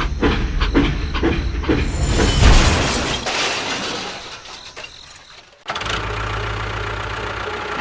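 An engine starting and chugging with evenly spaced strokes that fade over about five seconds, then cutting to a steady low hum about six seconds in.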